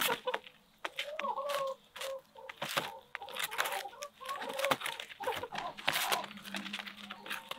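Hens clucking while they peck at pizza in a cardboard box, with many sharp taps and clicks of beaks striking the crust and cardboard.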